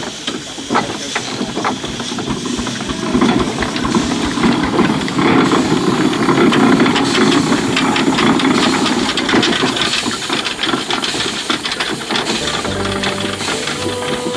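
Steam traction engine driving past: steam hissing with a quick run of exhaust beats and mechanical knocking, swelling to its loudest midway as it goes by. Music comes in near the end.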